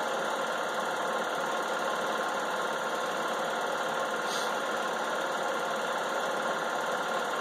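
Home-movie film projector running: a steady mechanical whir with a constant hum.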